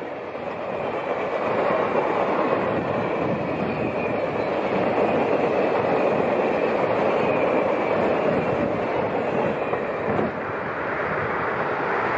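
Union Pacific streamlined passenger cars passing at speed: a steady rush of steel wheels on the rails, with some clatter over the rail joints.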